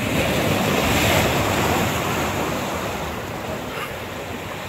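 Sea surf washing and breaking over shore rocks. A wave's rush swells about a second in, then slowly eases.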